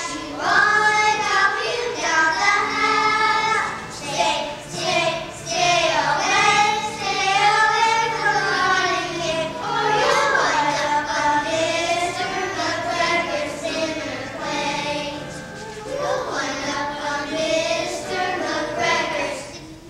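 A group of kindergarten-age children singing a song together.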